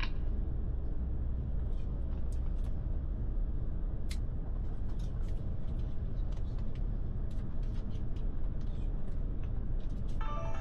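Steady low rumble of an airliner cabin on the ground, with scattered faint clicks. A few steady musical tones come in near the end as the cabin safety video begins.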